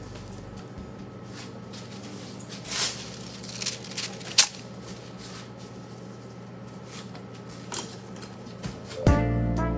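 Handling sounds at a cutting board as pieces of bluefin tuna are picked up and set down: a few sharp knocks and taps over a steady low hum. Jazzy background music with brass comes in near the end.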